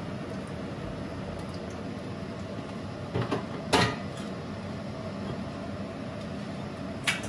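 Kitchenware clinking: a couple of sharp clinks about three and a half seconds in and another near the end, as a bowl and spoon are set down by the sink, over the steady background noise of a pot of chicken broth simmering on the hob.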